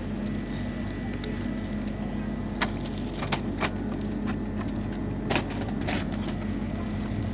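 Steady low hum of a supermarket's chilled display cases and ventilation, with a handful of short, sharp clicks and knocks in the middle of the stretch.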